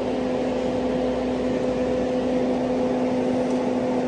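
A nearby engine running at a steady speed: a constant hum that holds one pitch throughout, over a rough noisy background.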